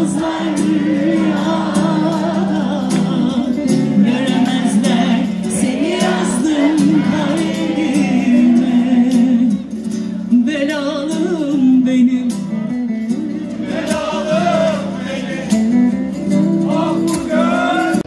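Live Turkish folk song (türkü): a woman singing over a band with a frame drum, tambourine and hand clapping.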